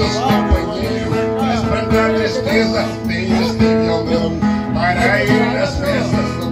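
Live gaúcho folk music: an acoustic guitar strumming with an accordion holding sustained notes.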